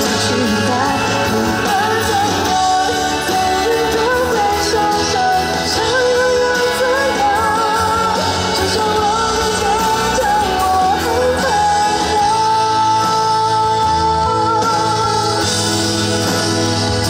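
Live pop-rock song: a singer over a full band, holding one long note a little past the middle.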